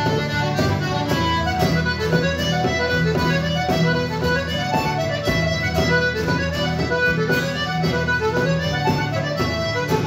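Live traditional instrumental tune played on accordion over acoustic guitar accompaniment: a fast melody of quickly changing notes over a steady, sustained bass.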